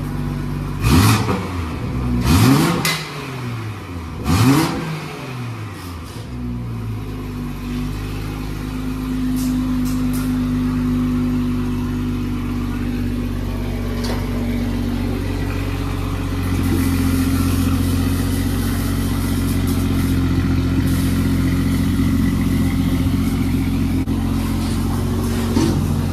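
BMW M340i's turbocharged 3.0-litre straight-six blipped three times in quick succession, each rev rising and falling in pitch. It then settles into a steady idle that gets slightly louder about two-thirds of the way through.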